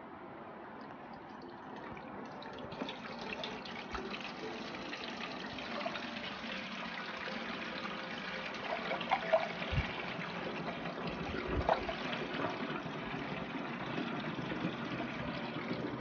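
Water poured from a plastic bottle into a humidifier's top-fill tank: a steady splashing trickle that starts about two seconds in and grows slowly louder, with a few short glugs.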